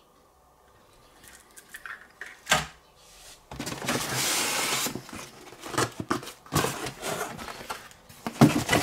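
Unboxing handling noise: scattered clicks and knocks of parts and packaging, with a loud rustle about three and a half seconds in that lasts about a second and a half.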